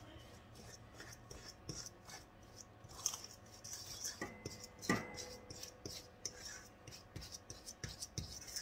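Fingers rubbing shortening into flour in a stainless steel bowl: soft, uneven rustling and scraping with scattered light knocks. About five seconds in, a sharper knock sets the bowl ringing briefly.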